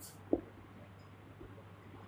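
Marker writing on a whiteboard, faint: a very short high scratch at the start and a single short knock about a third of a second in, over a steady low hum.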